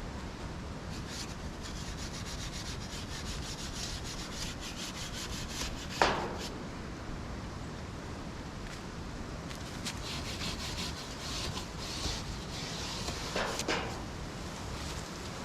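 Wood being worked by hand: repeated rasping, scraping strokes in two runs, with a sharp knock about six seconds in.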